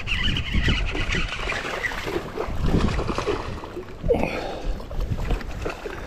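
Strong wind buffeting the microphone in an irregular low rumble, with choppy waves sloshing against the hull of a bass boat.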